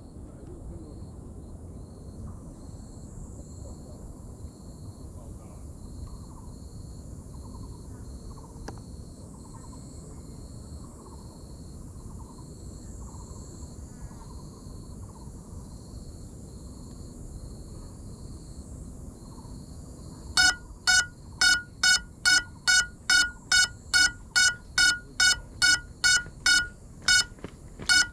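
Lost-model buzzer of a crashed FPV drone beeping loudly and regularly, about two beeps a second, starting some twenty seconds in; the beeper marks where the downed drone lies. Before it there is only a faint steady hiss with faint chirping.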